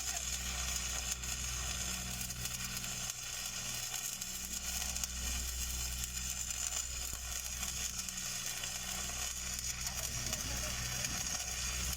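Stick (SMAW) welding arc on steel pipe, crackling and sizzling steadily as a downhill pass is run, with a steady low hum underneath.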